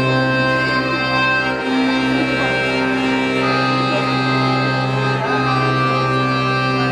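Accordion playing held chords over a steady low bass note, the chords shifting a few times.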